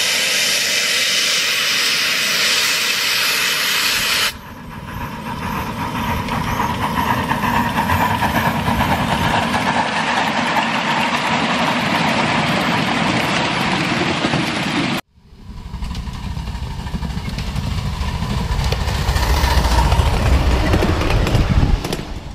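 Ride-on 7½-inch gauge live-steam train running past, steam hissing over the rumble of wheels on the rails. The sound breaks off abruptly about four seconds in and again about fifteen seconds in, then picks up again.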